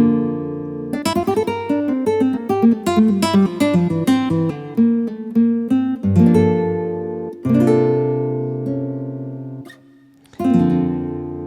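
Yamaha PSR-SX900 keyboard playing the demo phrase of its Concert Guitar voice, a sampled nylon-string classical guitar, picking quick runs of notes and chords. It breaks off briefly about ten seconds in, then rings a final chord.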